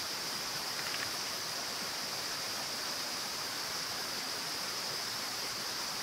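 A small creek flowing over rocks: a steady, even rush of water.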